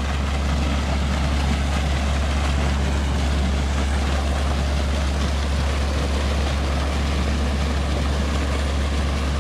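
Heavy rush of muddy water gushing out of a large flood-pump discharge pipe into a flooded ditch, over a steady low engine drone from the tractor driving the pump through its PTO, which is being sped up.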